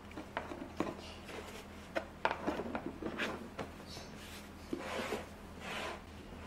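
A white plastic tissue box being refilled by hand: a string of light clicks and taps as the plastic lid is handled, then tissue paper rustling as it is pushed in and drawn up through the slot, about five and six seconds in.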